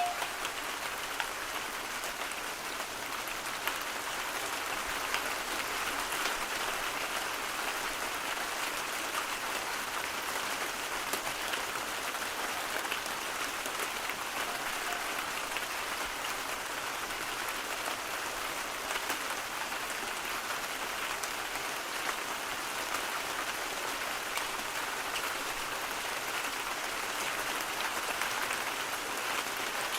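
Steady rain falling: a dense, even patter of drops with no change in strength.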